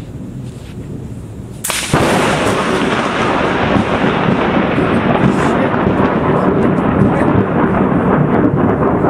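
Very close lightning strike on a tree: a sudden sharp crack about two seconds in, followed at once by loud, continuous thunder that stays up to the end.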